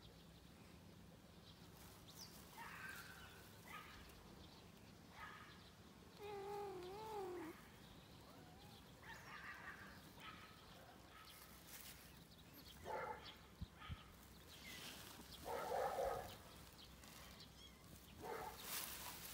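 Kitten meowing: about six short meows spread out, with one longer wavering meow about six seconds in.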